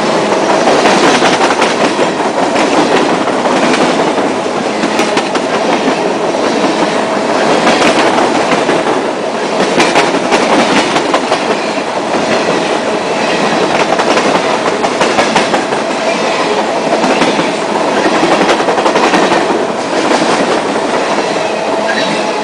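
CSX coal train's hopper cars rolling past at speed at close range: a loud, steady rumble and rattle of steel wheels on the rails, with repeated clacks as the wheels cross the rail joints and a steady ringing tone underneath.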